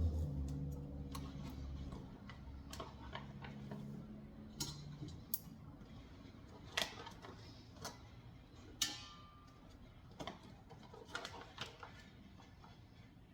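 Scattered light clicks and taps of kitchen handling as packaged lamb chops are worked out of their plastic packaging, with a low hum fading out over the first few seconds.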